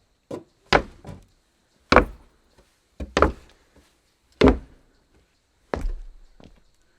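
Footsteps on wood: about nine separate knocking steps, unevenly spaced, some coming in quick pairs.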